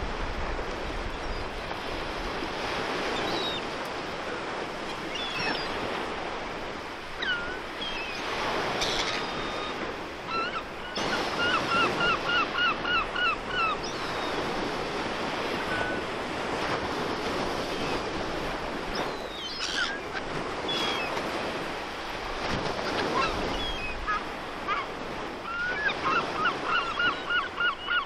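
Sea waves washing on the shore in a steady rush, with seabirds calling over it. Two runs of rapid repeated calls stand out, one about a third of the way in and another near the end.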